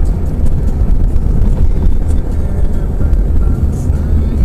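A car driving: steady low rumble of road and engine noise, as picked up by a dash cam.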